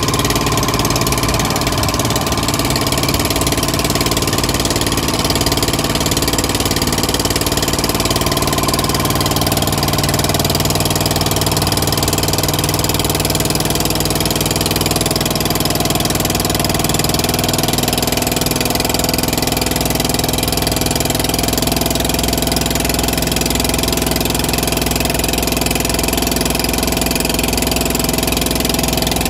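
Boat engine running steadily at an even speed, with a low hum that holds its pitch and a rush of wind and water over it.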